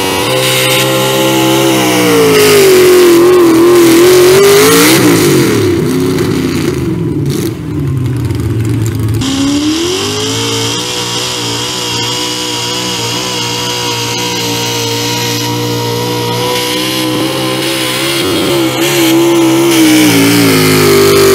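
Modified economy hot rod pulling tractor's engine running hard under load while dragging the weight-transfer sled. It is loud and high-revving, and its pitch sags and climbs as the load builds. The sound cuts abruptly about nine seconds in, then comes back revving, holds steady, and sags once more near the end.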